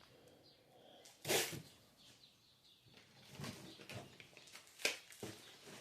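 Small cardboard-wrapped fireworks cakes being handled: one knock or rustle about a second in, then scattered light taps and rustling of the paper wrap.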